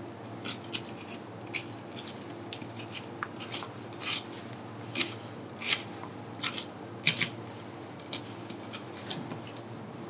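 Boning knife slicing into a raw goat lamb shoulder: short, irregular cutting sounds, about one or two a second, a few louder strokes in the middle.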